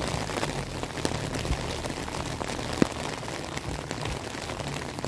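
Steady rain falling, with a few sharp ticks of single heavier drops, one standing out near the end of the third second.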